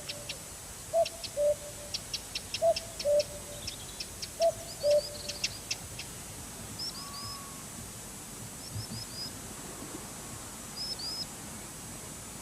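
Common cuckoo calling its two-note "cuck-oo", the second note lower, three times in the first five seconds. Small birds add high chirps and ticks throughout.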